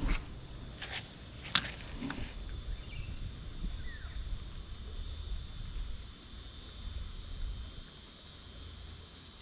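Steady, high-pitched insect chorus buzzing without a break, over a low rumble, with one sharp click about a second and a half in.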